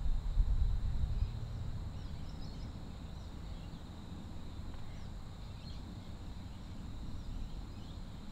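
Outdoor dusk ambience: a low rumble, strongest in the first second or so, with faint scattered bird chirps and a faint steady high-pitched tone.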